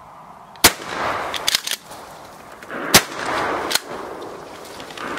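Two shotgun shots about two seconds apart, each followed by a short rush of noise, with a weaker sharp crack shortly after the second.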